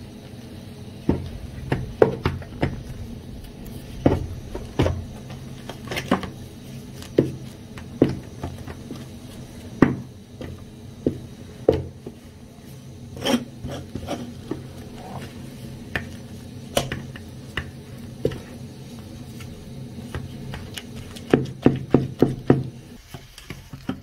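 Wooden stick stirring and pressing stiff cassava-and-sorghum flour posho in an aluminium saucepan, scraping the dough and knocking against the pot at irregular intervals, with a quick run of knocks near the end.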